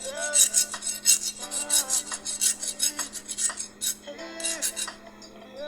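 Carpenter's hand saw played rake-n-scrape style, scraped rapidly and rhythmically with a metal scraper in a fast run of strokes several times a second, over backing music.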